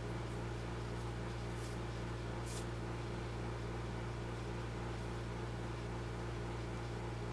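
Steady low hum, like a small motor or fan running, with two brief faint hisses about one and a half and two and a half seconds in.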